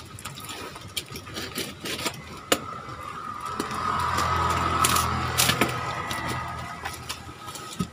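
Cardboard parcel being cut and pulled open by hand: scattered clicks, scrapes and crackles of tape and flaps. Through the middle a steady low hum swells and then fades, louder than the handling.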